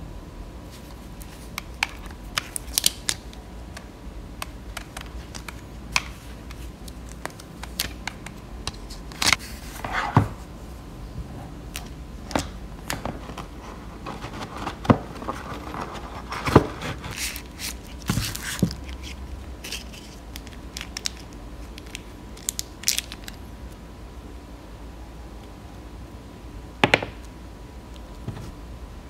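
Handling of a SteelSeries Arctis 5 gaming headset and its moulded plastic packaging tray: scattered plastic clicks, taps and scrapes, with a longer rustle in the middle and a sharp click near the end.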